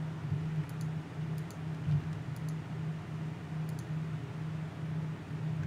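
Computer mouse clicks, faint double ticks of press and release, about five at uneven intervals, over a steady low electrical hum.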